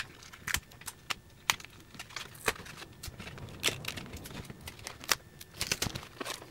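Irregular small clicks, crinkles and taps of handling: pieces of red Tuck Tape being peeled and pressed onto 3D-printed PLA mold parts, and the plastic pieces knocking lightly on the table.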